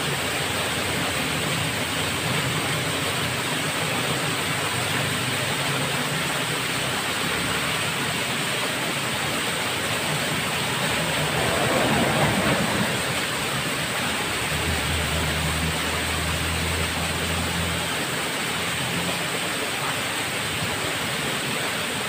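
Small waterfall pouring over rocks into a shallow pool: a steady rush of falling water, also splashing onto a person standing beneath it, swelling briefly about halfway through.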